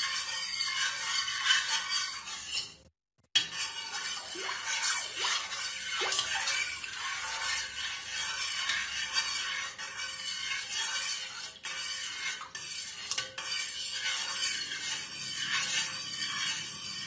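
Metal spoon stirring milk in a stainless steel pot: a steady swishing with occasional light clinks of the spoon against the pot. Yogurt is being mixed into the milk as a starter. The sound cuts out briefly about three seconds in.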